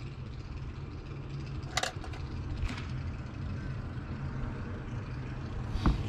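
Steady low hum with a faint hiss from a running smoke tester feeding low-pressure air into the intake of an air-cooled Porsche 911 with Bosch CIS injection. Two sharp clicks, about two seconds in and just before the end, come from the spring-loaded pop-off valve flap in the intake air box being worked shut. That valve leaks slightly at its seal.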